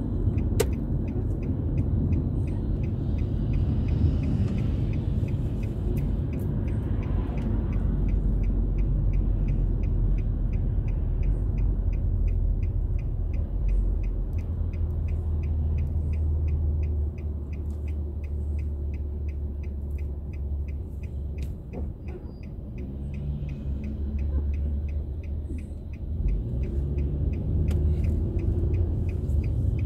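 Low road and engine rumble heard inside a moving car, easing off for several seconds past the middle and building again near the end. A faint, even ticking, a few ticks a second, runs through it.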